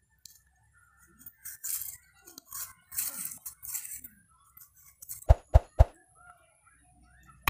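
A hand-forged two-handled bark knife scraping along a tree root in several short strokes, shaving off bark. About five seconds in come three sharp clicks in quick succession, the loudest sounds, as a like-subscribe-notify button animation pops up.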